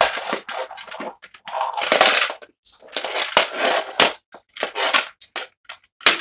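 A child playing with plastic toy figures: a run of short, noisy bursts of clattering and scraping, with a few sharp clicks.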